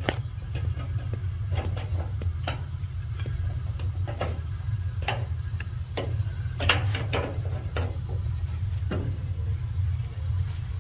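Scattered light clicks and knocks, with a louder cluster a little past the middle, as a part is refitted on a gas water heater, over a steady low hum.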